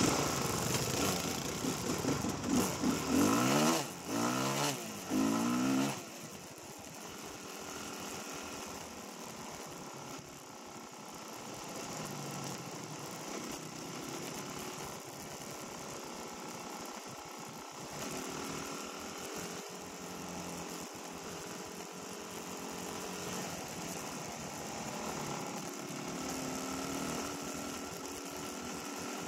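Dirt bike engine revving, its pitch rising and falling loudly for the first six seconds. It then drops to a quieter, steadier run with gentle shifts in pitch.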